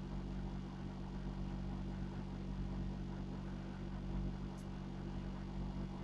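Steady low mechanical hum, a constant drone made of several low tones, with one faint short tick about four and a half seconds in.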